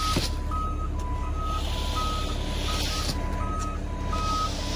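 A concrete truck's reversing beeper sounding in two alternating pitches over the steady running of the truck's engine. A sharp knock comes just after the start.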